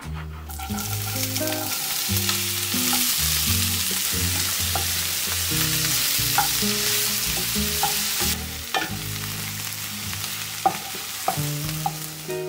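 Diced onion hitting hot oil with whole spices in a saucepan and sizzling, stirred with a wooden spoon. The sizzle is strongest for the first eight seconds or so, then eases, with a few light knocks of the spoon against the pan.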